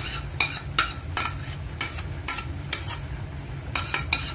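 A utensil clinking against a ceramic bowl and the cooking pot as yogurt is poured and scraped into the chicken: a run of sharp clinks, two or three a second, with a short pause about three seconds in, over a steady low hum.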